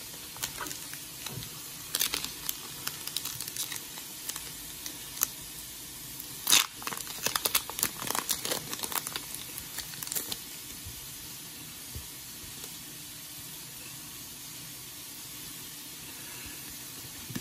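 Pokémon TCG booster pack's foil wrapper being crinkled and torn open by hand: a run of sharp crackles with one louder rip midway, then only a faint steady hiss.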